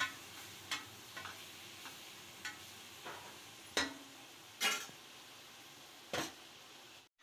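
Tomatoes, onions and ground masala frying in oil in an aluminium pressure cooker, a faint steady sizzle. A metal spoon stirs and knocks against the pot at first, and a few more short clicks and knocks come at scattered moments.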